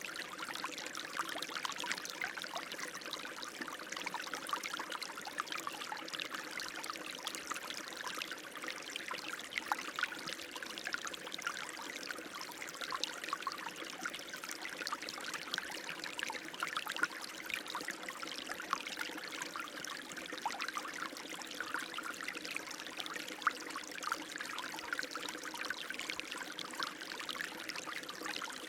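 Running water flowing steadily, with a continuous rush dotted with many small splashes and trickles.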